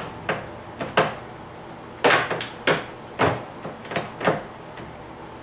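Gear-selector levers on a Webb WL435 17x40 lathe headstock being worked to change spindle speed: a string of about ten sharp metal clunks and clicks as the levers are moved and drop into position.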